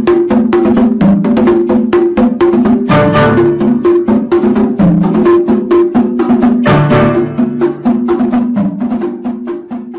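Background music with a quick, even percussive beat like a wood block over a repeating low melody, fading away near the end.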